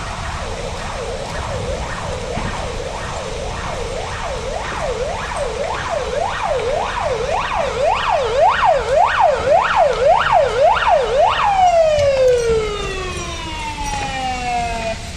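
Emergency vehicle siren in a fast yelp, rising and falling about twice a second and growing louder as it approaches, then switched off about eleven seconds in, its pitch sliding down as it winds down.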